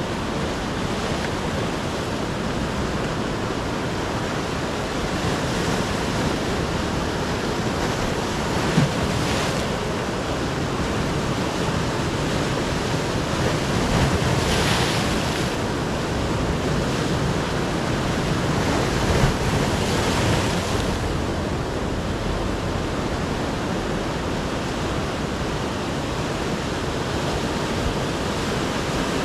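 Sea surf breaking and washing in, a steady rushing noise that swells as bigger waves come in. Two brief sharp knocks stand out, about nine and nineteen seconds in.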